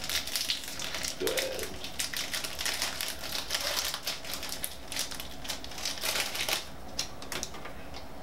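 Crinkling and rustling of a trading-card booster pack's foil wrapper being handled and opened, a dense run of small crackles that thins out near the end.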